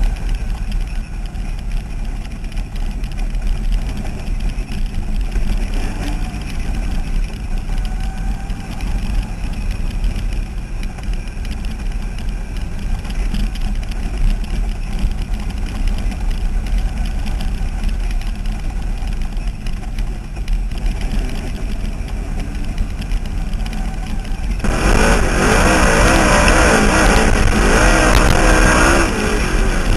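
Dirt-track race car engine running at racing speed, heard from an on-board camera as a steady low rumble. About 25 seconds in it suddenly gets much louder, with the engine pitch rising and falling.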